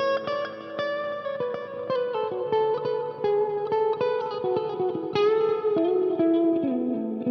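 Electric guitar played through a Headrush MX5 amp-modelling multi-effects unit on a clean tone: a run of single picked notes that steps down in pitch near the end.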